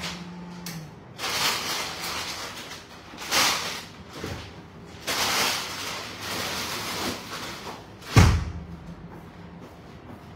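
Kitchen handling noises: a few short bursts of rustling and knocking, then one loud thud about eight seconds in, like something being shut or set down hard.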